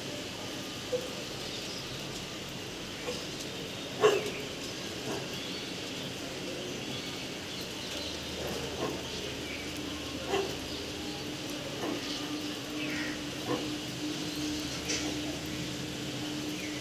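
Steady rain falling on a flooded street, with scattered short animal calls, the loudest about four seconds in. A low steady hum comes in during the last few seconds.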